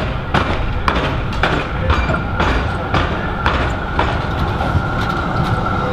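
A Z3-class tram drawing near on street track, its running gear giving a steady high whine that comes in about two seconds in. Under it are sharp, regular clacks about twice a second.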